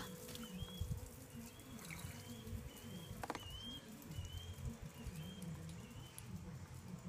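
A small bird chirping faintly in a steady series of short, high chirps, about two a second. A single sharp click comes about three seconds in.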